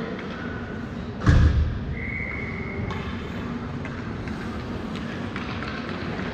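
Ice hockey rink ambience with a single heavy thud a little over a second in, followed by a steady high tone lasting about a second.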